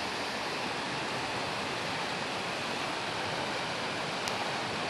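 Muddy floodwater rushing steadily through the breach of a burst earthen check dam, a continuous loud rush of churning water.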